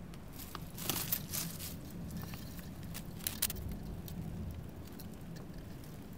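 Crackling, rustling handling noise of pine needles and twigs brushing against a hand-held camera, in a quick string of sharp crackles that dies away about halfway through, over a faint steady low hum.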